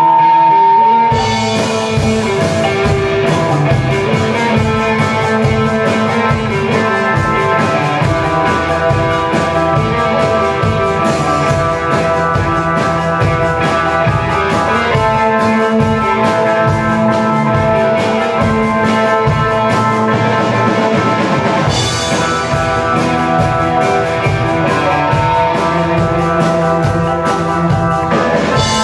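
Live band music mixing Minangkabau traditional instruments (talempong gong-chimes, gandang drum, traditional wind instruments) with electric guitar, bass guitar, keyboard and drum kit, played with a steady rock beat. A single held high note sounds at first, and the full band comes in about a second in; a cymbal-like crash rings out a little past the middle.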